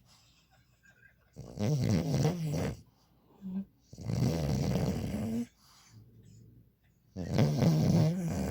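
French bulldog snoring: three long snores about three seconds apart, each lasting about a second and a half, with quiet breathing between. This is typical of the breed's short, flat-faced airway.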